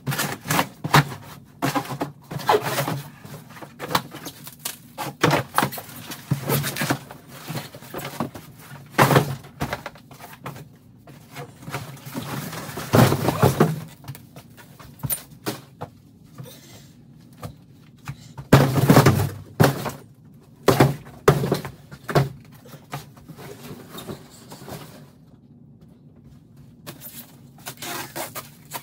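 Plastic stretch wrap crackling and a cardboard shipping carton scraping and knocking as a wrapped portable shampoo bowl is pulled out of its box and handled. Irregular crackles and thumps, with two louder rustling bursts partway through.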